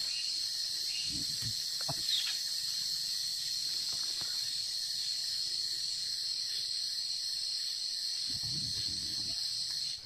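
Steady high-pitched drone of a forest insect chorus, held at two pitches throughout, with a few faint low rustles of hands working close by.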